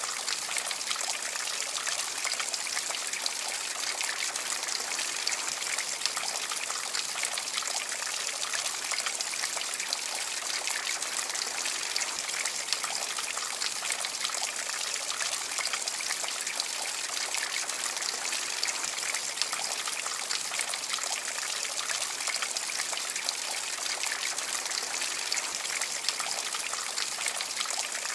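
Copper tree water feature running: dozens of thin streams of water trickling from its copper leaves and splattering down into the base, a steady, even sound.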